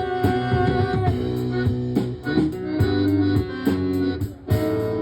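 Live band music without vocals: an instrumental passage of plucked strings, guitar-like, with notes falling in a steady rhythm.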